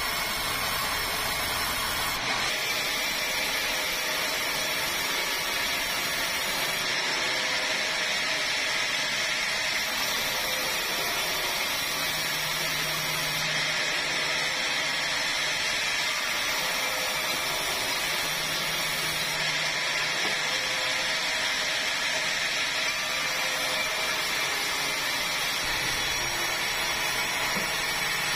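Sawmill saw and its drive motor running steadily while sawing red meranti timber into boards, a continuous loud machine noise.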